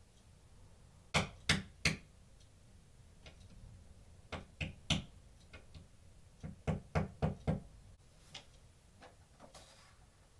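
Hammer tapping a nail into a wall in short bursts of sharp knocks: three taps about a second in, three more around four to five seconds, then a quick run of about six.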